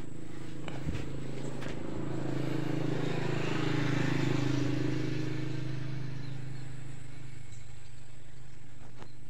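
An engine running steadily, growing louder to a peak about four seconds in and then easing back.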